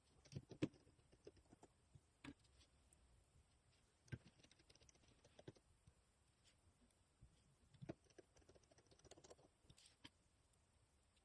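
Faint, scattered clicks and taps of small plastic and metal phone parts and tools being handled while a Nokia Lumia 630 smartphone is worked on, a handful of sharper ones standing out.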